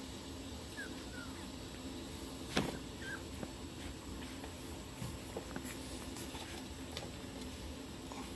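Puppies giving a few short, high squeaks, with a single sharp click about two and a half seconds in over a steady low hum.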